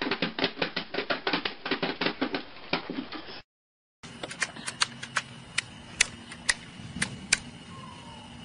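A baby rapidly beating small plastic toy drums, about six taps a second, which stop a little over three seconds in. After a short gap, a few sharp clicks follow at irregular spacing.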